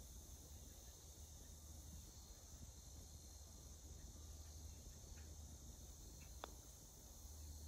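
Faint steady chirring of crickets over a low outdoor rumble, with a single light click about six and a half seconds in as the putter strikes the golf ball.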